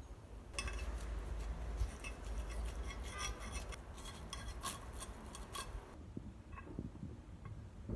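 Small clicks, clinks and taps of kitchen utensils and dishes being handled during food preparation: a busy run of quick taps for about five seconds, then only a few scattered ones near the end.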